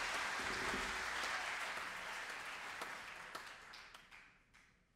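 Audience applause that fades steadily, thinning to a few scattered single claps near the end.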